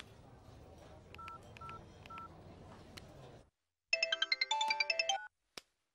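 Mobile phone sounds: three short, evenly spaced beeps as a call is placed. About four seconds in, a cellphone plays a melodic ringtone for about a second and a half, followed by a brief click.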